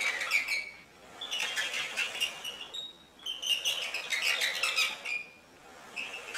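High-pitched laughter coming in several breathless bursts of rapid giggling pulses, with short pauses between them.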